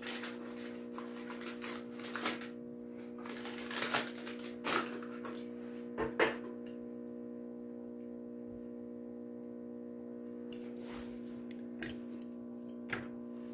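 Small motorized display turntable running with a steady hum, with scattered light clicks and taps as a diecast toy truck turns and is handled on it.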